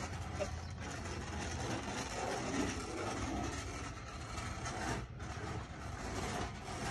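RipStick caster board's wheels rolling over a concrete patio, a steady low rumble as the rider circles.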